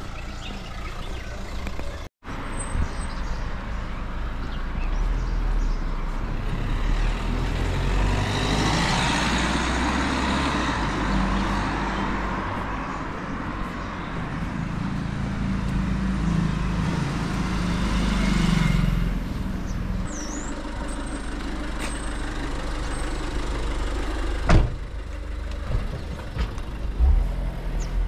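Street traffic: motor vehicles running with a low engine rumble. One vehicle swells up and passes close through the middle. A brief cut-out comes about two seconds in, and a single sharp knock near the end.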